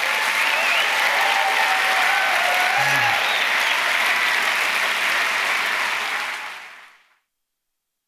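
Large audience applauding after a talk, loud and steady, then fading out about seven seconds in.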